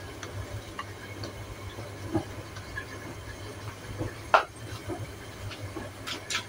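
Gas stove burner running with a steady hiss and low hum under a covered stainless-steel pot of soup that is coming to the boil, with scattered faint ticks and one sharper click about four seconds in.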